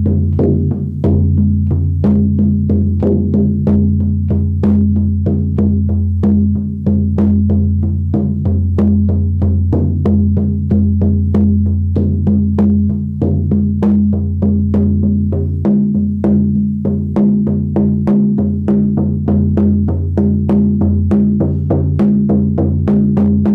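Buffalo-skin shamanic frame drum on a willow frame, struck with a firm beater in a steady beat of about two strokes a second. Each stroke gives a deep, resonant ring with a brighter, higher edge from the firm beater.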